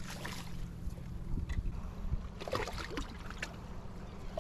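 Water lapping and sloshing against a rocky shoreline, with wind rumbling on the microphone and a few faint knocks and rustles as a striped bass is handled over the rocks.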